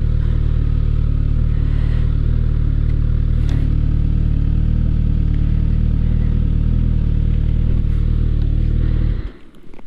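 Suzuki GSX-S1000's inline-four engine idling steadily, then switched off a little after nine seconds in.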